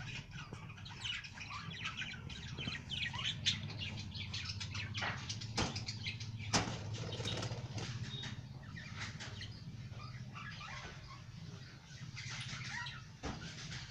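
Several pet budgerigars chirping and chattering continuously in a cage, with a few sharp clicks midway, over a steady low hum.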